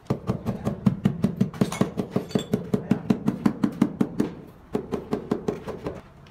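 Rubber mallet tapping ceramic wall tiles into their mortar bed, a quick run of dull knocks about five a second that pauses briefly about four seconds in, then resumes.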